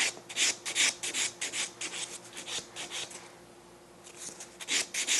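Nail buffer block rubbing back and forth over the top of a cured acrylic nail with a gel-and-glitter backfill, smoothing the surface. Quick scratchy strokes come about three or four a second, stop for about a second after three seconds, then start again.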